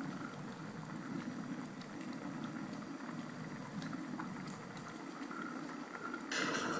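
Pot of cubed potatoes and meat boiling hard in water, a steady bubbling. A louder hiss comes in near the end.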